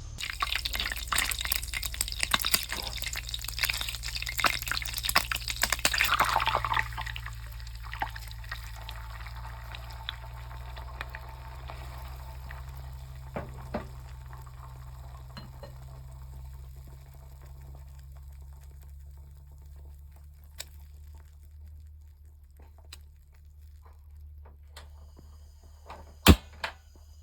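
Food frying in a pan with plenty of oil: dense sizzling and spattering for the first several seconds, then thinning to scattered pops. A low steady hum runs underneath, and there is one sharp click near the end.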